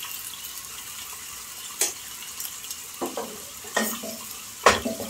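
Wooden spoon stirring meat in a stainless steel pot over a steady sizzle, with a few sharp knocks of the spoon against the pot, the loudest near the end.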